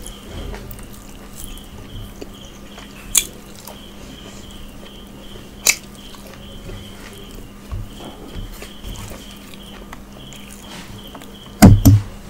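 Close-miked chewing of a mouthful of rice and curry, with a few sharp wet mouth clicks and a pair of louder knocks near the end.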